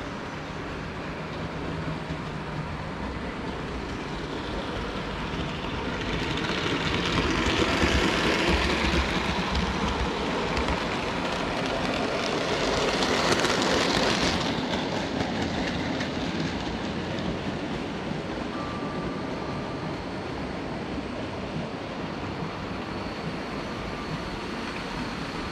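Model train running past close by on the layout's track, a rushing rumble of wheels on rail that builds from about six seconds in, swells twice and drops away about halfway through.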